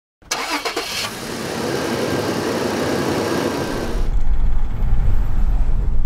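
Road traffic noise: a loud, even rush of passing traffic starts suddenly. About four seconds in it gives way to the steady low rumble of a car driving.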